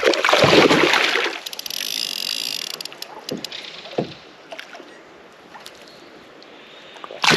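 Water splashing close beside a kayak, loudest in the first second and a half, followed by a softer hiss and a couple of light knocks about three and a half and four seconds in, then quieter lapping water.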